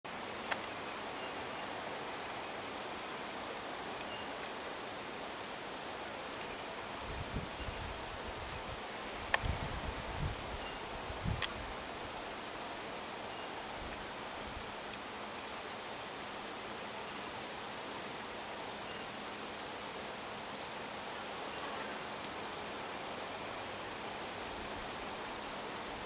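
Cicadas buzzing in a steady, high-pitched continuous drone, with a few soft knocks and clicks about a third of the way in.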